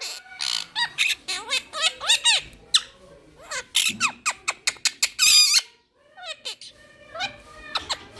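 Quaker parrot (monk parakeet) squawking and chirping in a rapid series of short calls, some sweeping up or down in pitch, with a brief pause about six seconds in.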